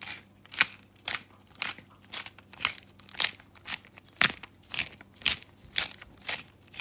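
Hand pepper mill grinding black peppercorns: a crunching grind with each twist, repeating evenly about twice a second.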